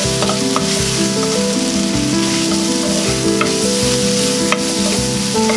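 Rice cakes, beef, mushrooms and onions sizzling in a frying pan as they are stirred, on the pan's leftover heat with the burner just turned off, with a few light clicks along the way. Background music with sustained notes plays underneath.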